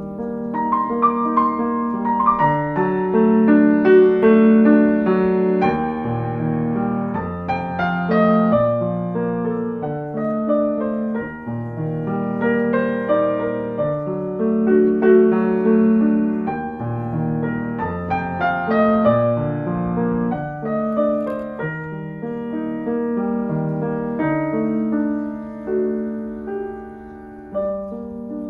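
Background piano music: a gentle melody of single notes over soft chords at an even pace.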